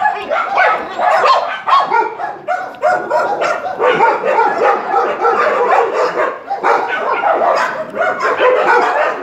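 Several dogs barking at once, their barks overlapping in a loud, continuous din with no pause.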